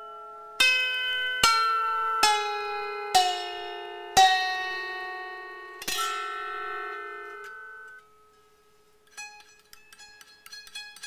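Lap harp plucked in slow single notes, each left to ring out and fade, about six of them; after a brief lull, quicker, softer plucking starts near the end.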